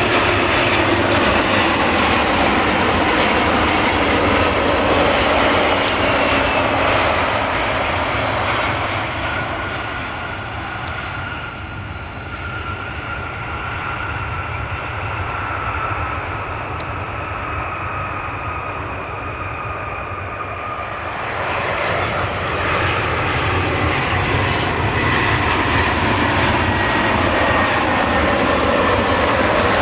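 Jet airliner engines on landing approach: a loud roar with a high whine, the pitch sliding down as the aircraft passes. The sound fades about ten seconds in and swells again a little after twenty seconds as another aircraft approaches.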